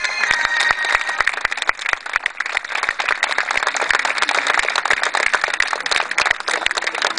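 Audience applauding: many hand claps close together, with no let-up.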